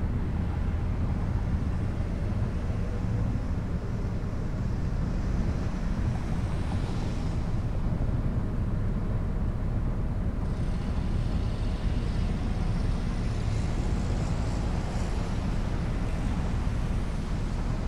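Car driving along a city street, heard through a roof-mounted camera microphone: a steady low rumble of road and wind noise, with a hiss higher up that fades out around eight seconds in and returns abruptly about two seconds later.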